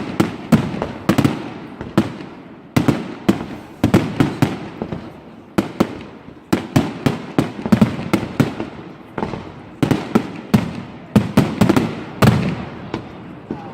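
Fireworks display: loud bangs from bursting shells, several a second in quick clusters, with short lulls between volleys and each crack trailing off in an echo.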